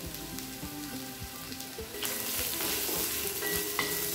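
Onions, peanuts, chillies and curry leaves sizzling as they fry in hot oil in a kadai, the sizzle getting louder about halfway through; a wooden spatula stirs the pan near the end.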